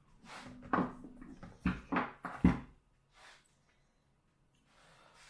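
A few sharp knocks and thuds of freezer parts being handled: the fan motor and its plastic panel pieces being moved about, the loudest knock about two and a half seconds in, then near quiet.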